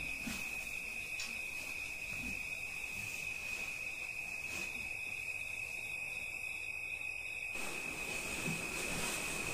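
A steady, high-pitched tone or trill that does not waver, over a faint background hiss, with a couple of soft knocks.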